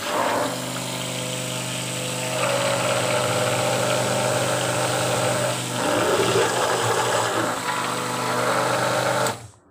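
Hand-held stick blender running steadily in a metal jug of cold-process soap batter, blending in Cambrian blue clay; the motor cuts off sharply near the end.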